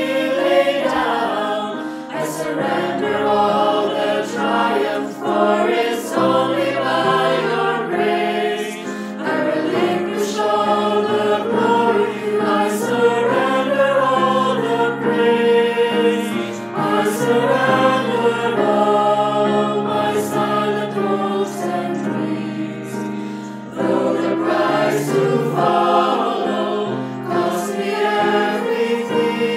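Mixed youth choir of boys' and girls' voices singing an English worship song with piano accompaniment, a virtual choir mixed together from separate home recordings.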